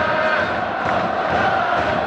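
Large crowd of football supporters singing a chant together, many voices holding steady sung notes without a break.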